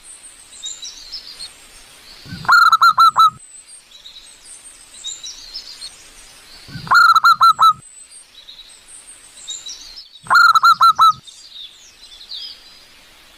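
Zebra dove (perkutut) calling: three bursts of about five quick coos each, every burst under a second long and a few seconds apart. Other small birds twitter faintly and high-pitched in between.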